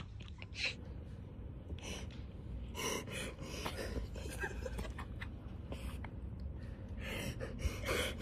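People's breathy gasps and huffs, in short scattered bursts a second or two apart, over a low steady rumble.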